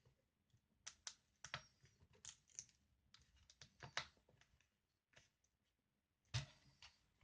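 Plastic clips of a Dell Latitude 5480 screen bezel clicking and snapping as it is pried off with a plastic tool: a scatter of short, sharp clicks at uneven spacing, the loudest about six seconds in.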